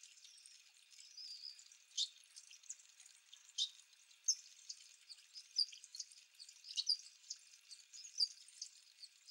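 Small aviary finches calling: short, high chirps and tweets, several a second, fairly faint.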